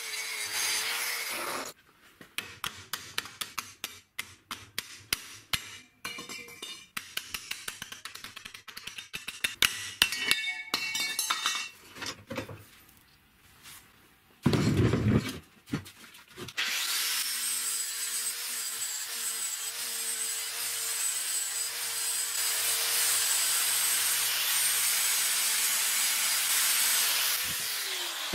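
An angle grinder cuts into a steel car shock absorber body and stops, followed by a long run of sharp metal clicks and taps and a short loud low burst. The grinder then runs steadily for about eleven seconds on the shock's steel tube and winds down near the end.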